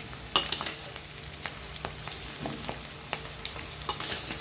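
Raw chicken pieces frying in hot oil with onions, green chillies and curry leaves in a steel kadai, a low sizzle. A handful of sharp metallic taps as the ladle works the chicken into the pan, the loudest about half a second in.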